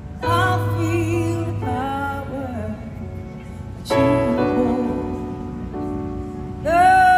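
A woman singing a slow ballad over sustained piano chords, with a new chord struck three times.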